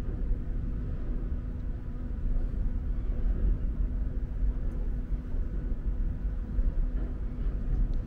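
Steady low outdoor rumble with a faint steady hum under it.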